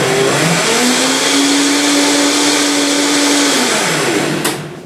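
Vitamix blender running on a load of frozen cherries, blueberries, kale and chia seeds. Its motor pitch rises about a second in, holds steady, then falls as it winds down and stops near the end.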